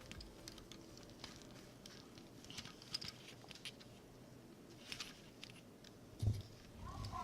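Faint, scattered small clicks and rattles of plastic LEGO Technic pieces being handled, with a soft thump about six seconds in.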